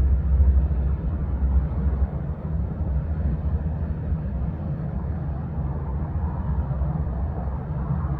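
1945 North American SNJ-6 Texan's Pratt & Whitney R-1340 radial engine heard as a low, steady rumble that slowly fades away.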